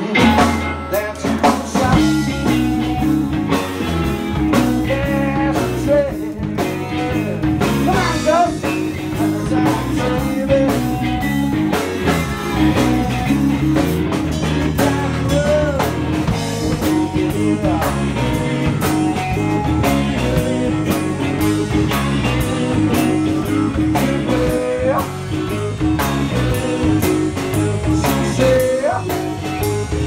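Live blues band playing: electric guitar and drum kit over a moving low line, with singing and a harmonica played into a microphone, its notes bending.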